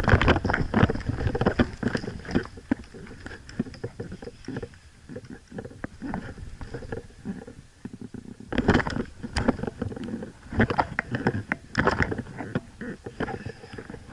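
Irregular knocks, clicks and rustling close to the microphone, with denser clusters about two-thirds of the way in: footsteps and the handling and rubbing of gear as an airsoft player moves.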